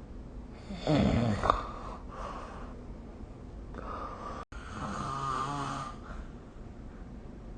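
A sleeping person snoring. A loud snore comes about a second in, then a longer, softer snore with a low hum a few seconds later. A split-second gap in the recording cuts through the audio around the middle.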